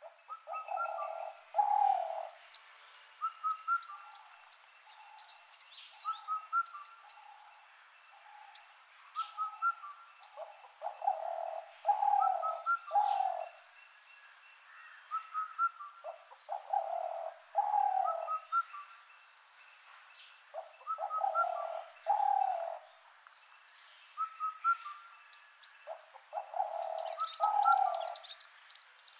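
Wild birds calling: a low hooting call of two or three notes that comes back about every five seconds, over many quick high chirps and trills from other birds.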